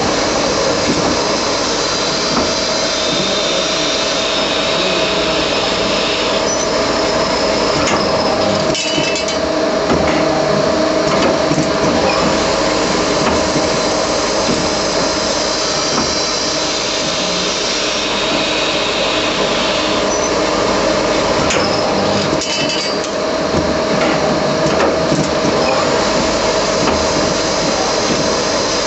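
Traub A25 automatic lathe running while turning a valve guide: a steady machine noise with a constant hum. The noise changes briefly about nine seconds in and again a little past twenty-two seconds.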